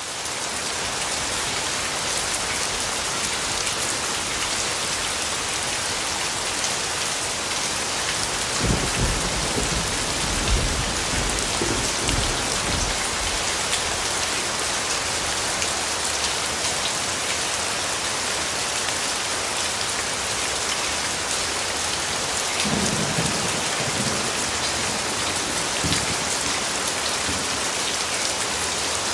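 Steady rain falling, an even dense hiss, with low thunder rumbling twice: once from about nine seconds in and again a little past twenty-two seconds.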